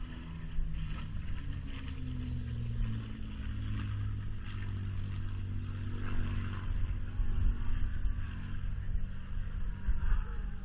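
A propeller aircraft's piston engine droning as it flies past overhead, its pitch slowly falling as it passes. Wind rumbles on the microphone.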